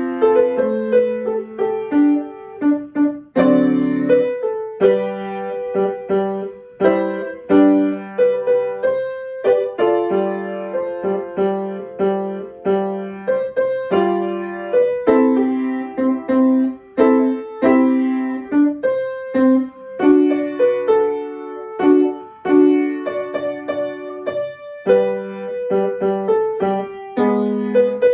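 Piano played solo: a steady run of struck notes, a melody line over lower accompanying notes.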